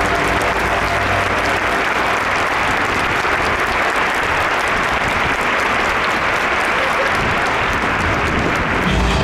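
Large stadium crowd clapping: a dense, steady applause. A low rumble comes in near the end.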